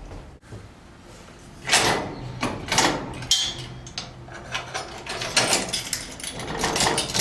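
Latch pin, chain and galvanised steel bracket of an Edwards trailer's folding livestock deck being handled: a loud knock about two seconds in, then scattered clicks and rattles of metal on metal.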